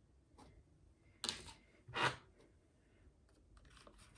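Handling knocks and clicks while crickets are being fished out of their container with a stick: two sharp knocks a little under a second apart, then faint light clicks near the end.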